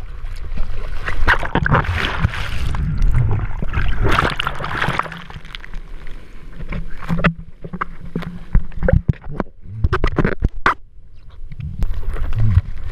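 Ocean whitewater rushing and splashing around a camera held at water level in the surf, in surges of foam with sharp splashes of water against the camera in the second half.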